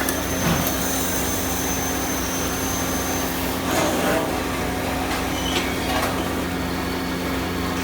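Workshop machinery running with a steady hum and a high whine that stops about three seconds in. A few light knocks come through over it.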